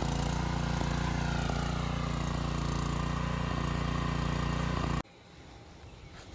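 212cc single-cylinder small engine (Honda-clone type) running steadily at low throttle, set just above the turtle mark, now that its clogged carburetor jet has been cleaned. The sound cuts off abruptly about five seconds in, leaving a much quieter background.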